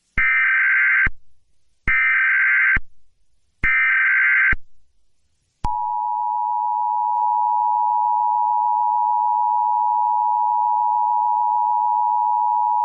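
Emergency Alert System SAME header: three harsh data-tone bursts about a second long each, followed about six seconds in by the steady two-tone EAS attention signal (853 and 960 Hz sounding together).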